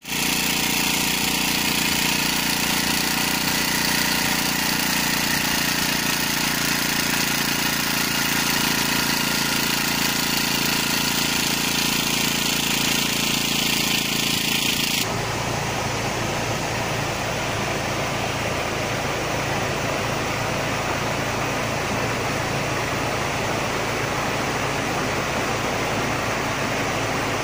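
Small generator engine running steadily, powering an electric eel-fishing rig. The sound changes abruptly about halfway through and becomes a more even hiss.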